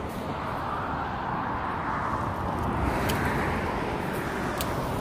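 Wind rushing with a low rumble that swells and eases, and a few faint sharp ticks.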